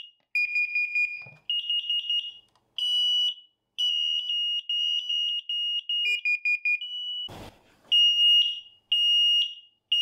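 SAFE-TECH carbon monoxide and smoke alarms sounding their built-in sounders on test-button presses: loud, shrill beeps in shifting patterns (rapid chirps, trains of short beeps, then long evenly spaced beeps). A single knock about seven seconds in.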